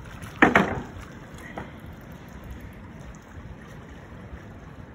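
A hooked fish thrashing at the water surface, with a brief loud double splash about half a second in, over steady wind and water noise.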